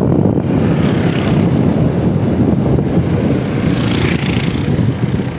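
Wind buffeting the microphone and tyres rolling on the road as a motorcycle coasts downhill in neutral with its engine off, with brief hissy swells about a second in and again about four seconds in.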